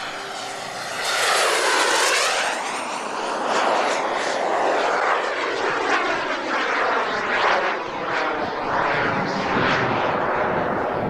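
Model jet's B300F turbine engine flying past. It swells about a second in, with a high whine that drops in pitch as the jet passes, then stays loud as it flies on.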